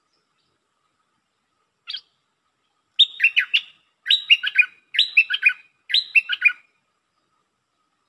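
Caged decoy stripe-throated bulbul singing: one short note about two seconds in, then four quick phrases about a second apart, each a run of several falling whistled notes.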